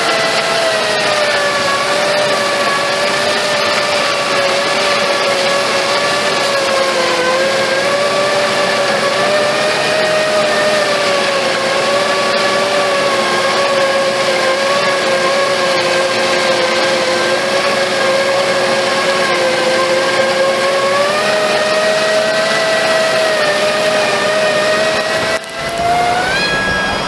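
Fendt 720 tractor's engine and drivetrain heard from inside the cab, running steadily under load with a high-pitched whine. Near the end the pitch rises briefly before the sound cuts off.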